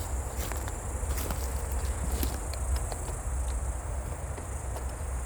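Steady high-pitched insect chorus over a low outdoor rumble, with a few scattered light clicks and scuffs, like footsteps.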